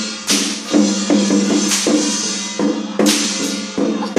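Chinese temple percussion music: a crashing cymbal-like stroke about every second and a half over quicker drum strokes, with a steady ringing tone underneath.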